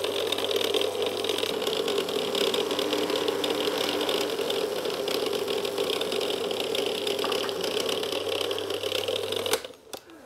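Small food processor's motor running steadily, blending a watercress and garlic dressing as vinegar and light soy sauce are poured in through the lid; it cuts off suddenly near the end.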